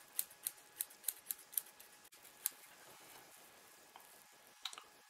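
Small scissors snipping stray sphagnum moss strands off a moss ball: a quick run of crisp snips over the first couple of seconds, then a few more near the end.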